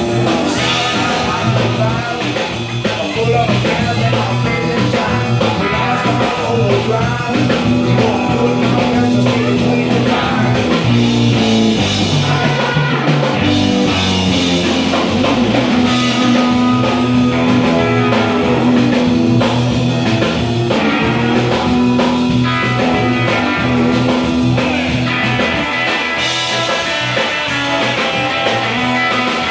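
A live electric blues band playing at full volume: two electric guitars, bass guitar and a drum kit.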